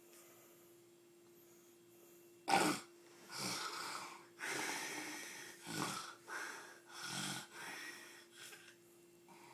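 A sleeper snoring: after a couple of seconds of quiet comes one sharp snort, the loudest sound, then a run of loud snoring breaths, about one a second. A steady low hum runs underneath.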